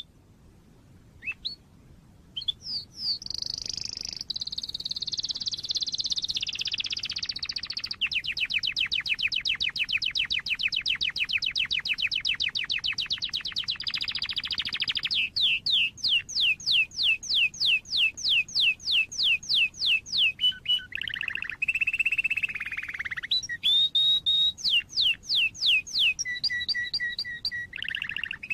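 Domestic canary singing a long, varied song. After a few chirps, it moves through warbling phrases, a very fast trill, rising sweeps at about four a second, and a repeated steady note near the end.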